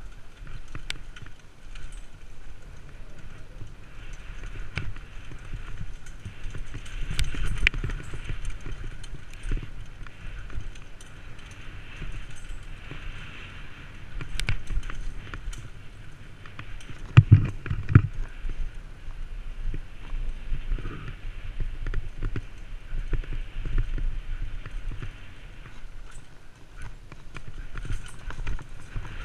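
Downhill mountain bike clattering over a rough, rocky trail: chain and frame rattling and tyres crunching on dirt and stones, with a run of hard knocks. A couple of heavy thuds come about two-thirds of the way through, as the bike hits rocks or lands a drop.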